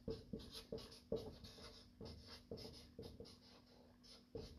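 Marker pen writing on a white writing board: faint, quick, uneven strokes as a word is written out letter by letter.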